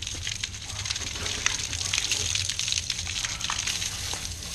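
Water spraying from a garden hose onto a person and splashing off him, a steady rush broken by small irregular splashes.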